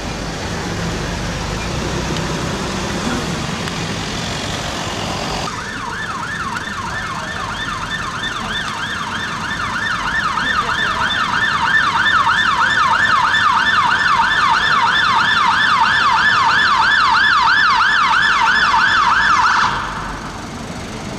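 Fire engine siren on a fast yelp: rapid rising-and-falling sweeps, about three or four a second, that start about five seconds in and grow louder as the appliance approaches, then cut off suddenly near the end. Before it there is only general street noise.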